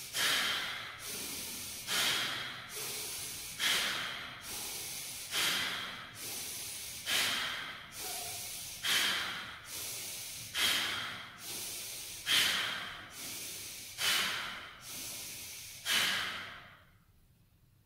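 A man doing rhythmic active breathing: ten forceful exhalations about every 1.7 seconds, each a sharp rush of air driven by a contraction of the abdominal muscles and followed by a quieter inhale as the belly fills.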